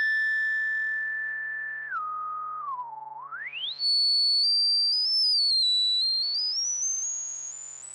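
Electronic synthesizer tones ending the song: a thin whistle-like tone over a held low chord. The whistle holds steady, steps down and dips, then sweeps sharply up about halfway through and wanders higher as the sound fades.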